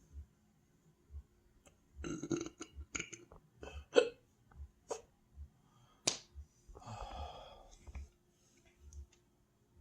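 A person hiccuping and belching from an overfull stomach after overeating: sharp, abrupt hiccups about four, five and six seconds in, and longer burps around two seconds in and again about seven seconds in.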